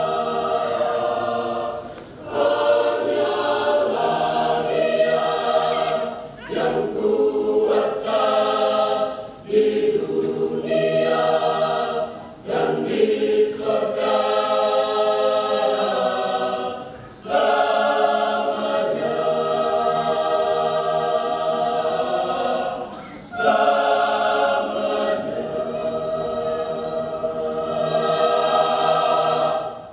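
Mixed choir of men and women singing a cappella, in sustained phrases with short breaks between them; the singing stops at the very end.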